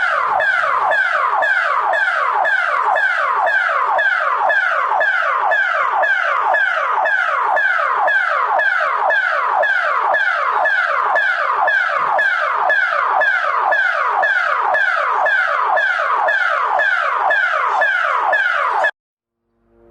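Emergency alert (EAS) alarm tone: an electronic siren of rapidly repeated falling sweeps, about two a second, each dropping from high to low. It cuts off abruptly about a second before the end.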